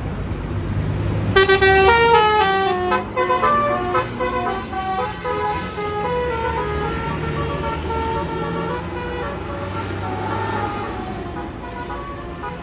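Indonesian bus 'telolet' musical air horn, a Basuri-type set with roof-mounted trumpets, playing a tune about a second and a half in. It opens with a quick run of notes stepping down in pitch, then carries on as a longer melody over the bus engine's low running.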